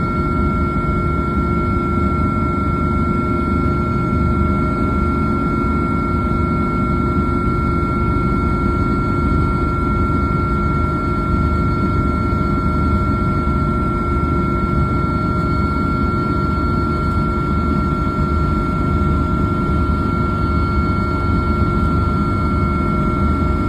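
Helicopter running steadily: a pulsing low rotor beat under a constant high turbine whine.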